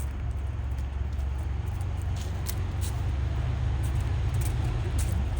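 Steady low rumble, with scattered faint clicks over it.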